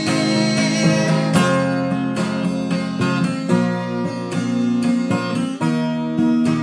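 Acoustic guitar strummed steadily, its chords ringing on between strokes.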